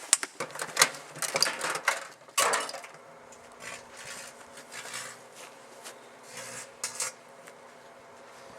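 Clicks and knocks of handling for about three seconds, then a microwave oven running with a steady hum and a few faint crackles.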